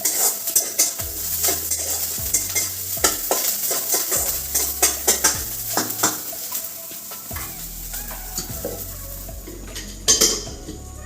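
A spatula stirring and clicking against a pan as chopped garlic, ginger and green chillies fry in sizzling hot oil, a tempering for dal. The clicks come thick and fast, then thin out after about seven seconds.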